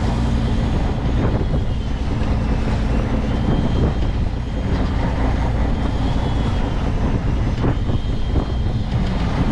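Fishing boat's engine running steadily with a low drone, under wind and sea noise. A faint high whine rises and fades several times over it.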